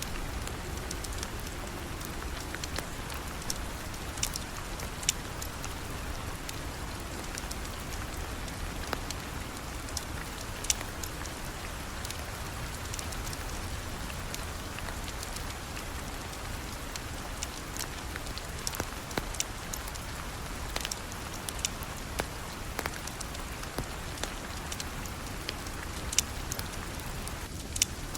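Steady rain falling, an even hiss with scattered sharp ticks and pops.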